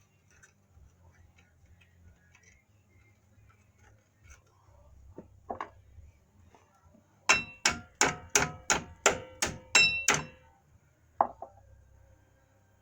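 A hammer striking metal: about ten sharp, ringing blows at roughly three a second, then a single blow about a second later. Two softer knocks come a little before the run.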